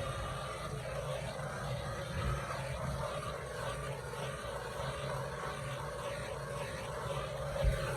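Electric hot-air blower running steadily, blowing across wet epoxy resin to spread the pigmented layers and open cells. A short low thump near the end.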